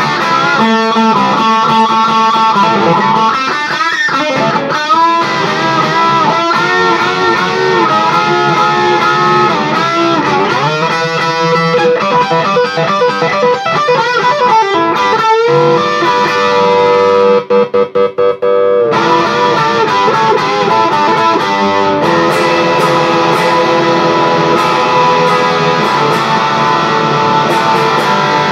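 BC Rich Legacy B electric guitar on its bridge pickup through a Mesa Boogie Badlander amp on the crunch setting: overdriven lead playing full of string bends and vibrato. About halfway through a note is held, then cut on and off four times in quick succession, and the last third is busier picking.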